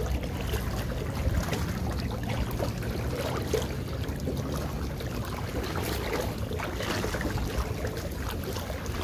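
Okuma Alaris 20 spinning reel being cranked while playing a hooked fish, under steady wind noise on the microphone and small waves lapping at the shore.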